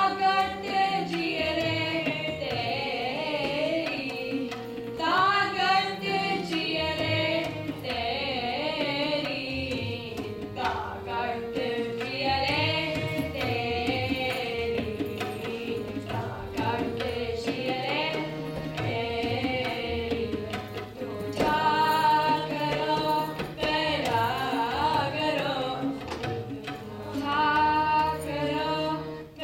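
Sikh shabad kirtan: a woman singing over a harmonium, with tabla keeping the rhythm.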